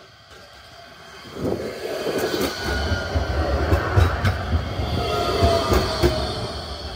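Low-floor tram running close past on street track, with a heavy rumble of wheels on the rails, scattered clicks and faint thin squeals. It comes in loud about a second and a half in and eases off near the end.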